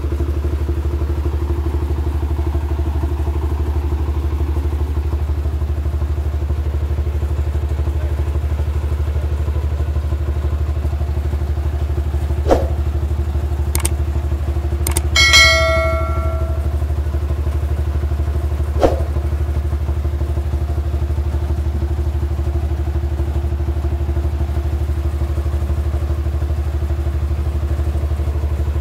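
Portable rice milling machine running steadily, its engine giving a loud, even low drone. About halfway through, a few sharp knocks, one with a brief metallic ring.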